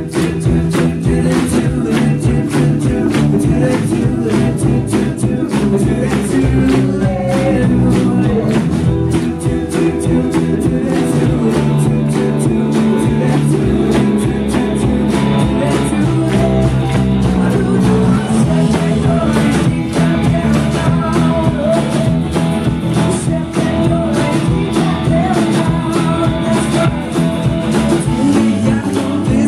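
Live rock band playing with acoustic guitar, electric bass and drum kit, with a steady driving beat and singing at times.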